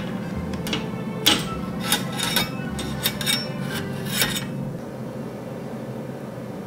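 Metal spatula clinking and scraping against a wire cooling rack as baked croissant rolls are set down on it: a handful of sharp clicks and clatters within a few seconds, which then stop.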